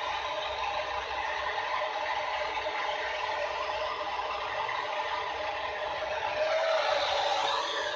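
Steady static hiss from a handheld FM transceiver's speaker with the squelch open on a weak satellite downlink, growing a little louder near the end.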